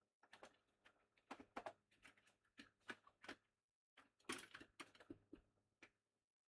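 Faint, irregular clicking and rattling of small hard items being handled and knocked together, as when rummaging through a box of computer parts and adapters.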